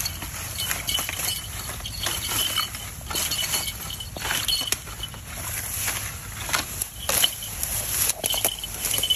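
Grass and dry stalks rustling and crackling in irregular bursts as someone moves and steps through the vegetation, with a faint high chirping repeating in the background.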